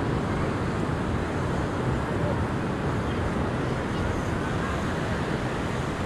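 Steady wash of ocean surf breaking along a sandy beach, with wind rumbling on the microphone.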